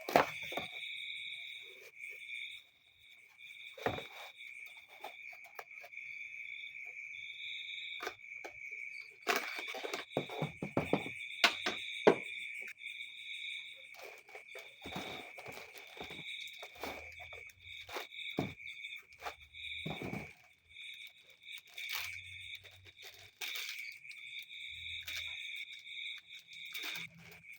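Steady, high-pitched chirring of insects such as crickets, the upper note pulsing in short chunks, with scattered clicks and knocks, which come thickest around the middle.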